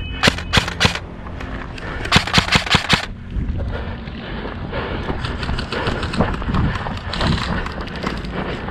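Airsoft gun firing: three single shots in the first second, then a short rapid burst of about seven about two seconds in. After that, fainter rapid clicking carries on.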